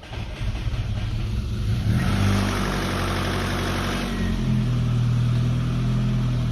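Saab 900 Turbo's four-cylinder petrol engine running just after being started, its speed rising about two seconds in and then settling to a steady run. The engine has a clatter that the owner likens to a diesel.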